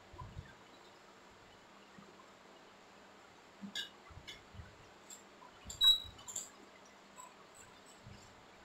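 Utensil sounds from stirring in a nonstick frying pan: a few light taps and scrapes of the spoon against the pan, then a sharp metallic clink about six seconds in, over a faint steady hum.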